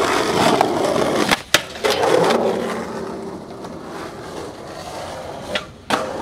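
Skateboard wheels rolling and scraping on concrete, with a sharp clack of the board about one and a half seconds in and a smaller one near the end.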